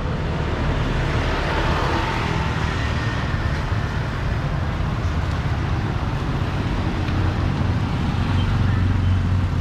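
Roadside traffic noise from motorbikes and cars, with a motorbike-drawn tuk-tuk passing close and a little louder near the end.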